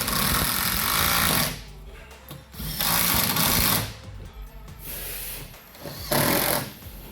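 Handheld power tool running fasteners in three bursts, the first two longer than a second and the last short.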